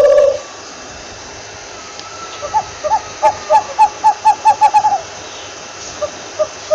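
An owl calling: a rapid series of short hoots, about five a second, for a couple of seconds, then a few more hoots near the end over a faint background hiss. A steady tone at the very start cuts off within the first half second.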